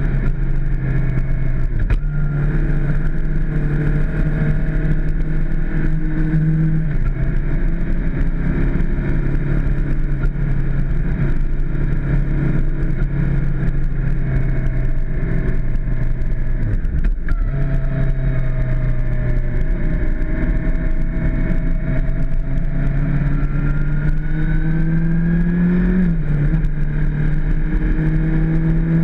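Suzuki GSX-R600's inline-four engine running at a steady cruise with wind rumble on the microphone. The engine note holds steady, with a few sudden steps in pitch as gears change: about 7 seconds in, a brief break about 17 seconds in, and a rise then drop near the end.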